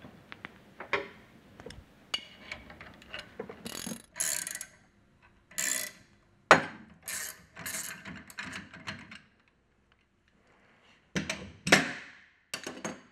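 Ratchet wrench clicking in bursts of strokes as it turns the forcing screw of a gear puller, with metal scraping, while the puller draws a ball bearing off a centrifugal pump shaft clamped in a vise. The strokes break off for a second or so before a last run near the end.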